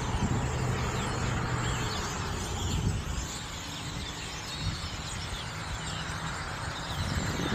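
A large flock of birds in a tree chirping and chattering all at once, a dense continuous twittering, over a low steady hum.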